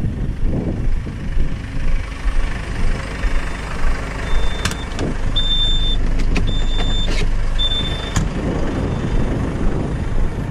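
A vehicle engine running with a steady low rumble; about halfway through, a reversing alarm beeps four times, about once a second, with a few sharp knocks among the beeps.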